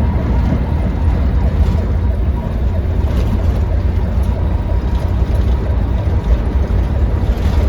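Steady low road and engine rumble inside the cabin of a moving ambulance at cruising speed.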